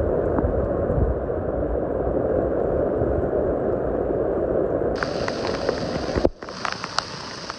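Heavy rain pouring down in a steady, dense hiss. About five seconds in, sharper patter and scattered drop hits join it. The sound drops out briefly about six seconds in, and then the rain continues with sharp drop hits.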